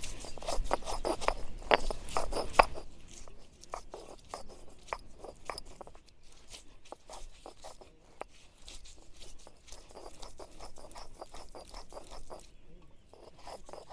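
Stone roller (batta) worked back and forth on a flat stone slab (sil), crushing spices into a masala paste. It makes a run of gritty scrapes and small clicks, louder for the first few seconds, then softer.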